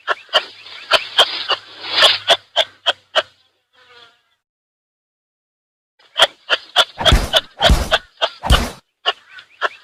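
Kangaroo clucking: trains of sharp, rapid clicks a few per second. The clicks pause for a few seconds midway, then return with three loud, deep thumps near the end.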